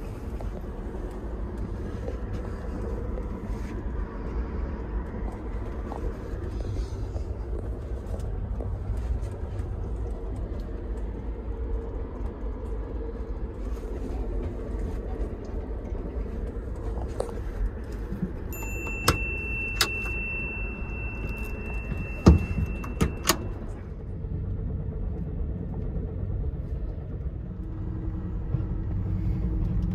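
Ride noise inside an Amtrak Superliner sleeping car under way: a steady low rumble. A little past the middle, a high thin tone sounds for about five seconds along with a few sharp clicks.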